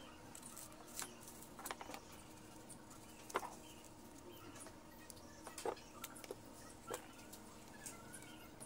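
A small knife cutting into a red apple, paring off the skin and digging into the top: faint crisp cuts and scrapes at irregular intervals, the sharpest a little over three seconds in.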